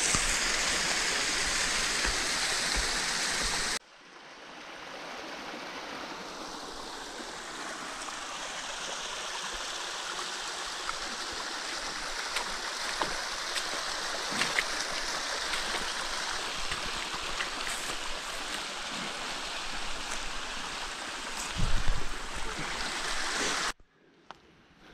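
Small forest mountain stream running over rocks, a steady rush of water: louder for the first few seconds, then cutting abruptly to a softer flow. A brief low thump about three seconds before the end, and the water sound drops away near the end.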